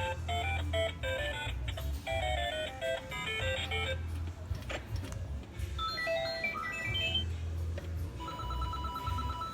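Intro music: a bright electronic melody of short stepped notes over a pulsing bass line. About a second before the end comes a fast run of repeated two-tone beeps.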